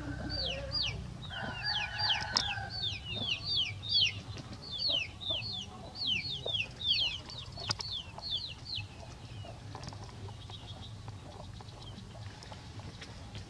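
Chicks peeping: a rapid run of short, high peeps, each falling in pitch, about three a second, that stops about nine seconds in. A low hum runs underneath.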